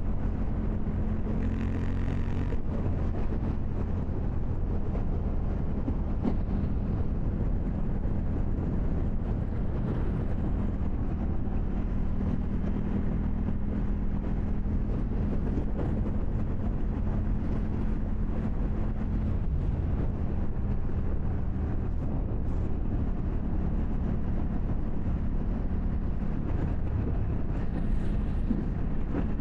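KTM 790 Duke motorcycle's parallel-twin engine running steadily, its low drone holding a fairly even pitch with only small shifts.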